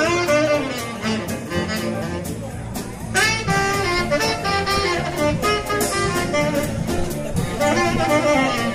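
Live swing jazz band playing, with a saxophone leading over piano, bass and a steady ride-cymbal beat on the drum kit. A note slides up sharply about three seconds in.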